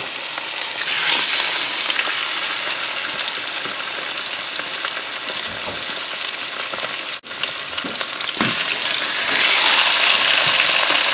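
Raw chicken breasts sizzling in hot oil in the pot of a Cosori multi-cooker as they are laid in to brown. The sizzle grows louder about a second in and again near the end as more breasts go into the oil.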